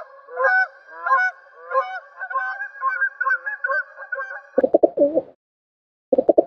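Geese honking over and over, many overlapping calls. About four and a half seconds in, the sound cuts abruptly to pigeons cooing in short phrases with silent gaps between.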